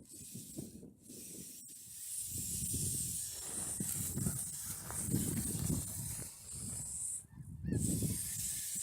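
Wind buffeting the microphone in gusts. Under it runs a steady high-pitched hiss that cuts out briefly near the end.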